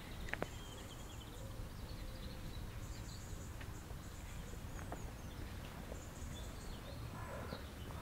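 Birds singing in the trees in short, repeated high chirping phrases and trills, over a steady low outdoor rumble. A couple of sharp taps come near the start.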